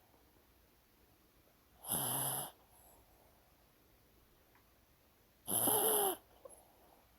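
A sleeping dog snoring: two short snores about three and a half seconds apart, the second with a whistle-like tone in it.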